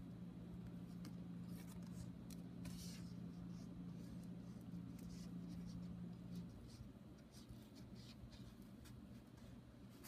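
Faint rustling and scratching of lace and ribbon being handled and pulled apart on a paper card, in small scattered ticks. A low steady hum runs underneath and stops about six and a half seconds in.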